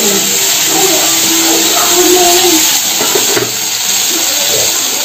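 Sliced potatoes and onions sizzling as they fry in oil in a kadai, a steady hiss, with a metal spatula stirring them. Faint background voices or TV sound run underneath.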